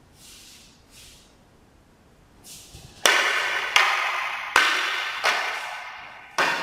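Wooden weapons in a partnered drill: a few faint swishes through the air, then from about three seconds in five sharp wooden clacks, roughly 0.7 s apart, as an eiku (Okinawan wooden oar) strikes against another wooden weapon. Each clack rings briefly.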